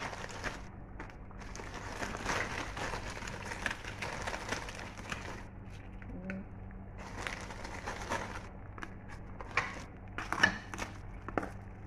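Crispy pork chicharon crunching and crackling as pieces are handled and dropped into a pot of simmering soup, in several spells with a few sharp clicks near the end, over a steady low hum.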